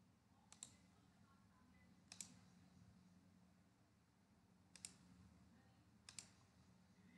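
Near silence broken by four faint computer-mouse clicks, the second and fourth each a quick pair of clicks.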